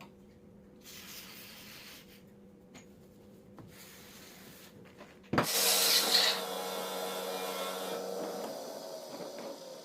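Metal parts being handled in a workshop: faint rubbing, then a sharp knock about halfway through, followed by a loud scraping rasp and a ringing that fades over about three seconds.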